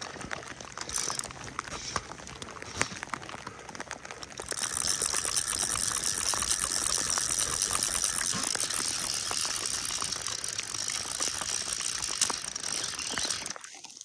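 Fly reel clicking rapidly and steadily for about nine seconds from a few seconds in, its clicker ratcheting as line is wound in on a hooked fish. A few scattered light ticks come before it.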